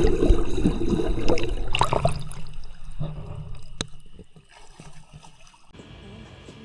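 Water splashing and gurgling right at the microphone, loud and churning for the first two to three seconds, then dying away.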